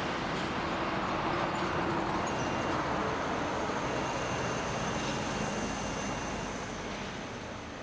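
Steady noise of a passing vehicle, fading away near the end.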